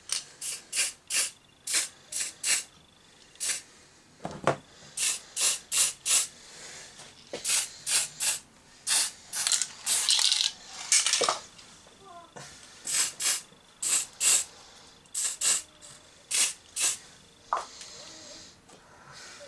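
Aerosol spray paint can spraying gloss black in many short hissing bursts, with one longer spray about ten seconds in. There is a single low knock about four seconds in.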